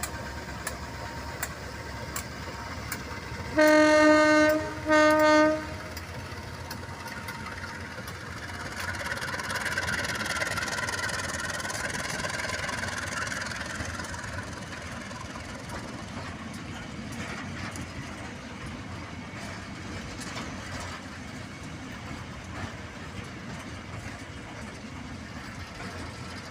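Train horn sounding two short blasts, each about a second long, a few seconds in. Then the running noise of a train on the track swells and dies away over several seconds.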